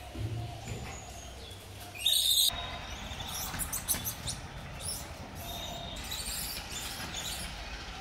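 Birds chirping over outdoor ambience, with a brief loud hiss-like burst of noise about two seconds in.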